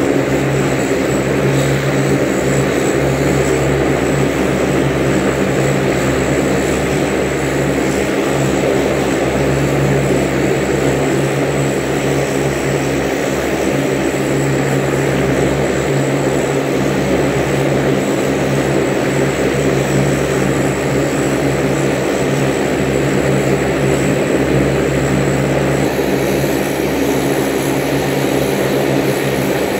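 Saab 340's twin General Electric CT7 turboprop engines running on a ground engine test: a loud, steady propeller drone with a constant low hum.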